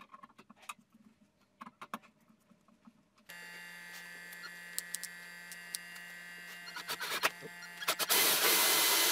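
A few faint clicks of a screwdriver on the projector's bulb holder screws. Then an electric drill fitted with a hole saw runs with a steady whine. About eight seconds in, the saw bites into the plastic headlight dust cap with a loud, rough cutting noise.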